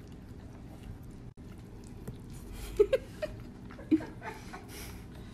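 Small dog eating dry kibble from a bowl, chewing and crunching, with a few louder short noises between the middle and about four seconds in.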